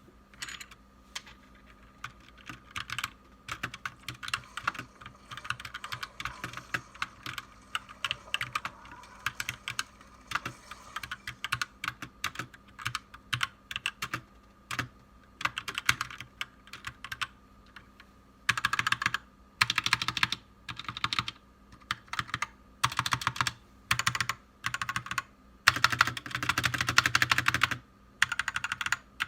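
GK61 60% mechanical keyboard being typed on: irregular key clacks for about the first eighteen seconds, then fast flurries of keystrokes about a second long each, the longest lasting about two seconds near the end.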